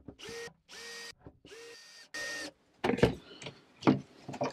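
Cordless drill-driver run in about four short bursts, each whirring up to speed, driving a screw into the engine gauge panel. After that, a few sharp clicks and knocks of handling.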